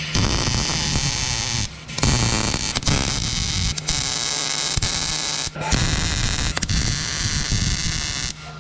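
MIG welder arc crackling and sizzling as it lays weld beads on sheet steel. It runs in three or four spells, stopping briefly between them and restarting.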